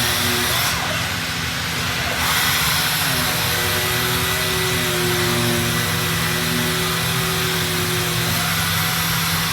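Robotic sanding cell running on MDF doors: a steady machine hum under a broad hiss of air, with a motor tone that holds and then shifts pitch a few times. The hiss dips briefly about a second in.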